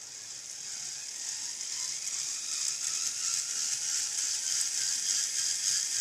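Small electric motors and plastic gear train of a ROKR Emperor Scorpion animated model kit running: a steady high whir that starts suddenly and builds slightly over the first couple of seconds.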